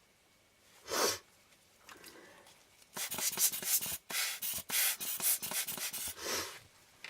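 Lens tissue rubbed over a glass lens element: one short swish about a second in, then a run of quick scrubbing strokes.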